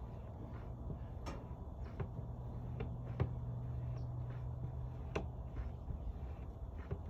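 Hand pump on a jug of tire sealant being worked stroke by stroke, a sharp click every second or two as sealant is pushed into the tire through the valve stem, over a low steady hum.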